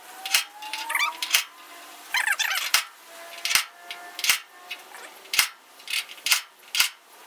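Rusted sheet metal of a Pontiac Firebird quarter panel being flexed and worked by hand while still spot-welded to the body: a dozen or so sharp clicks and taps, with squeaky creaks about one and two seconds in.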